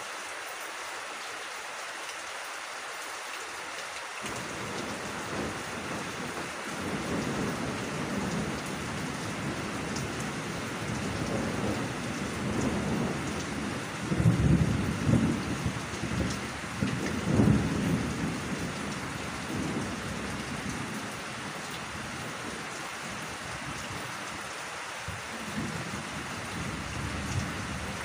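Steady rain falling, with a long roll of thunder that starts about four seconds in, is loudest in the middle and dies away near the end.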